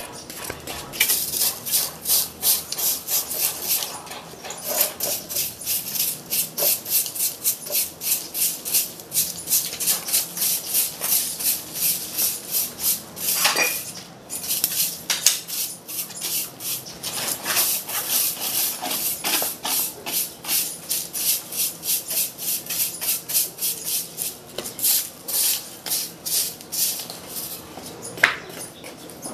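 Walis tingting, a stiff coconut-midrib stick broom, sweeping a concrete floor in quick scratchy strokes, about two a second, pausing briefly a couple of times.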